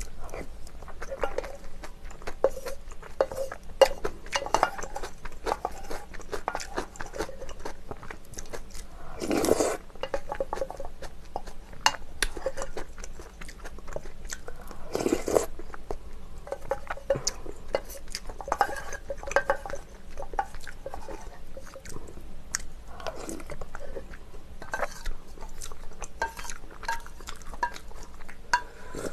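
Close-miked eating sounds of a person eating ramen noodles: chewing, slurping and small clicks of a wooden spoon against a stainless steel pot, with two louder slurps about ten and fifteen seconds in.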